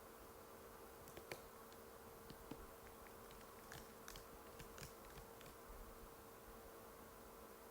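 Sparse, light key clicks from an Apple MacBook butterfly keyboard, a few scattered presses clustered in the first two-thirds with one sharper click about a second in, over a faint steady hum.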